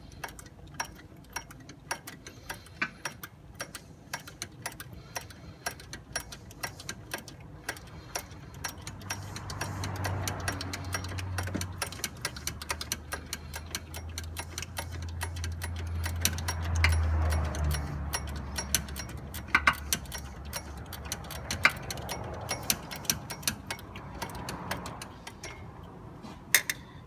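Rapid, even clicking of a ratchet wrench turning in the AC compressor's mounting bolts, with a low hum through the middle.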